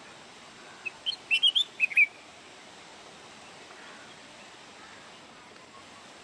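A caged finch-type songbird giving one short burst of quick, high chirps about a second in, then falling silent over a faint steady hiss.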